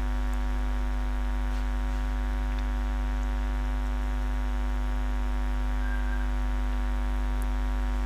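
Steady electrical mains hum in the recording: a low, even buzz that does not change.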